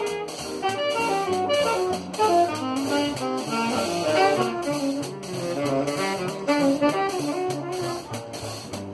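Small jazz combo playing live: a saxophone carries a running melodic line over upright bass, drum kit and cymbals.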